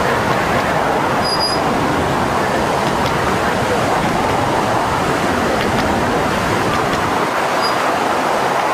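Muddy floodwater in a flooding desert wash rushing fast beneath a bridge, a loud, steady rushing noise.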